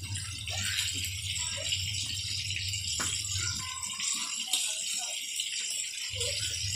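Chicken pieces deep-frying in hot oil in a wok: a steady, dense sizzle full of small crackles, with a single sharp click about three seconds in.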